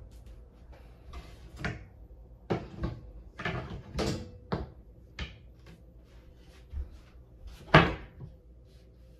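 Desk parts knocking and clacking as they are handled and fitted together, about a dozen separate knocks with a loud one near the end.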